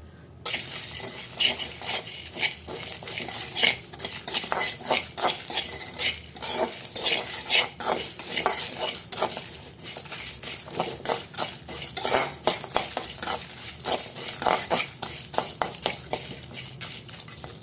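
A spatula stirring and scraping whole spices as they dry-roast in a kadai: rapid, irregular scrapes and clinks, starting about half a second in.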